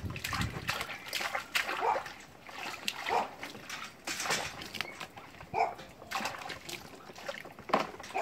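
Soapy bathwater splashing and sloshing in a plastic tub as a capuchin monkey is scrubbed by hand, with short animal calls repeating about once a second.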